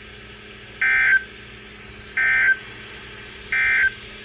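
Emergency Alert System end-of-message code: three short, harsh digital data bursts, evenly spaced about a second and a half apart, over a steady low hum, marking the end of the alert broadcast.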